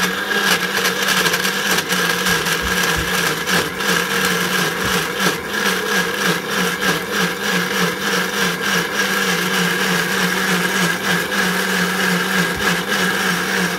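Panasonic countertop blender running at a steady speed with a steady motor hum, grinding soaked dried chillies into a paste.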